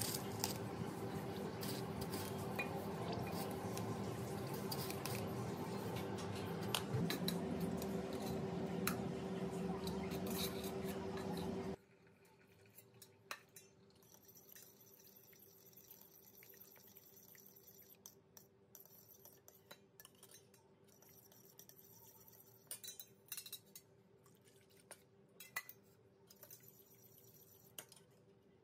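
Cutlery and dishes clinking, with spoons and utensils knocking against bowls. For about the first twelve seconds the clinks sit over a louder steady hum, which cuts off suddenly; after that, scattered light clinks continue at a low level.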